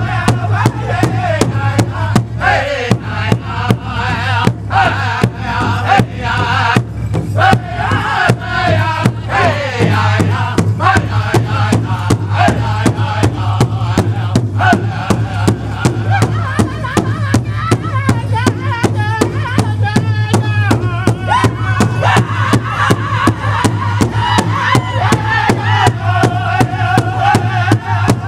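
Powwow drum group performing an intertribal song: several men singing together over a large shared hide drum that they strike in unison with a steady, even beat.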